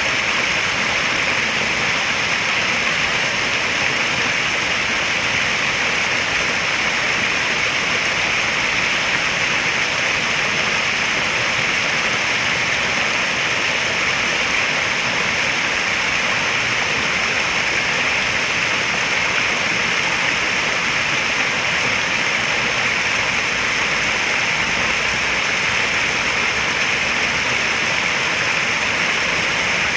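Steady, even rush of flowing water at a koi pond, a bright hiss with no breaks or splashes standing out.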